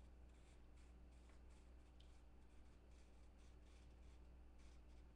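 Near silence: steady low room hum with a few faint, soft rustles.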